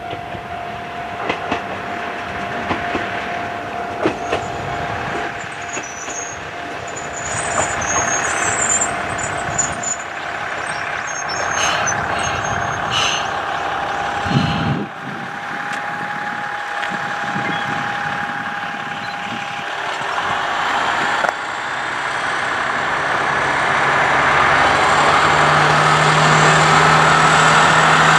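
Tenryu-Hamanako Railroad single-car diesel railcar running along the line, its engine growing louder as it draws nearer in the last third. A steady high tone sounds through the first two-thirds, and birds chirp briefly.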